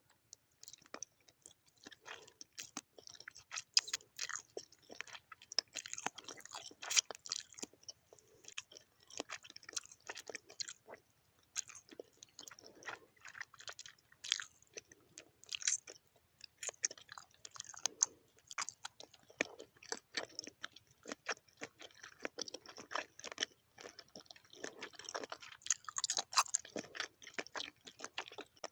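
Close-up chewing and biting of gelatin: a dense, irregular run of short sharp mouth clicks with softer chewing between them.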